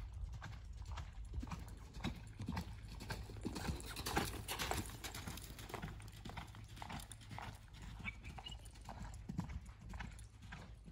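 Hoofbeats of a bay colt loping on a sand arena: a steady run of soft thuds that grows louder as the horse passes close about four seconds in, then fades as it moves away.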